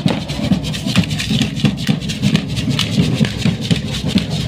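Traditional street dance music played by a band with a tuba, with many sharp clicks from the dancing troupe over it.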